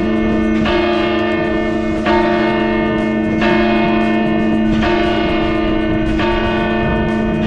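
Church tower bells heard loud and close from inside the bell tower, tolling the hour: a fresh stroke about every second and a half, each one ringing on into the next.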